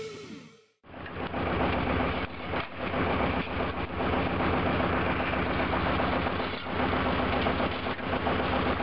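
Title music fades out in the first second; then an engine starts being heard and runs steadily at a constant speed, with a steady low hum underneath.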